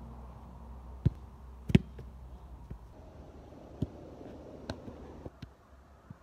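Footballs being kicked and bouncing: a handful of short, sharp thumps, the loudest near two seconds in and smaller ones later, over a steady low rumble.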